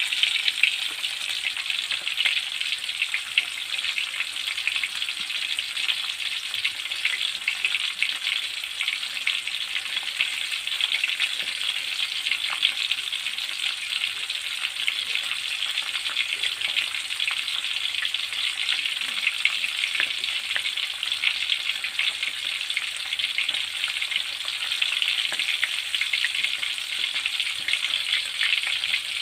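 Pieces of milkfish frying in oil in a steel wok: a steady sizzle with dense, fine crackling.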